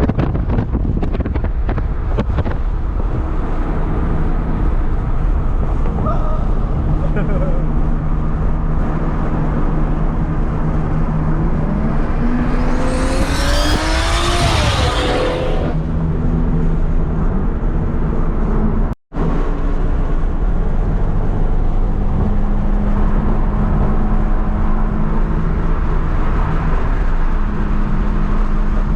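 Cabin sound of a big-turbo Volkswagen Golf GTI Mk7 being driven: steady engine and road noise. About 12 seconds in, the engine pitch rises and falls with a hiss.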